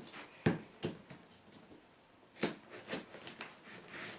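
Heavily taped cardboard box being cut open with a folding knife and handled: scrapes of the blade and cardboard with a few sharp knocks, the loudest about half a second in and again about two and a half seconds in.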